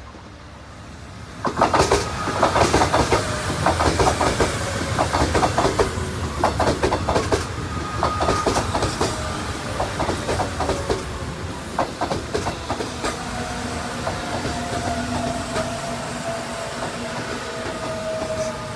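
Seoul Metro VVVF electric multiple unit running past: from about a second and a half in, its wheels clatter over rail joints in quick runs of clicks. In the second half, the whine of its VVVF traction inverter falls slowly in pitch as the train slows.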